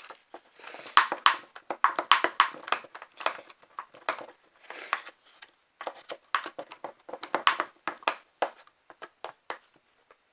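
A spoon stirring PVA-glue slime as it is being activated, making a quick, irregular run of sticky clicks and scrapes against the container. The stirring stops about a second before the end.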